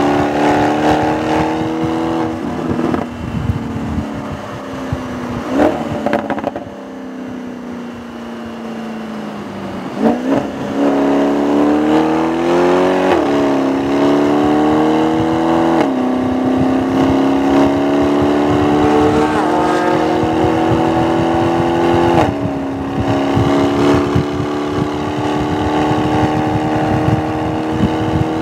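2017 Audi S6's twin-turbo V8 being driven hard on a race track. The revs fall and the engine quietens for a few seconds, then pick up sharply about ten seconds in. It then pulls up through the gears, with quick drops in pitch at upshifts about thirteen, sixteen and twenty-two seconds in, and is climbing again at the end.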